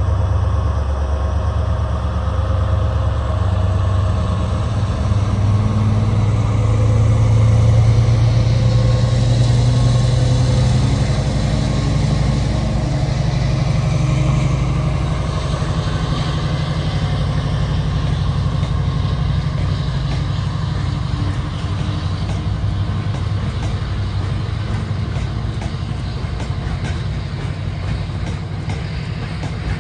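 A train at a station platform, its engine running with a steady low hum that is loudest about eight to ten seconds in and then slowly fades. Faint wheel clicks build up near the end as it moves off.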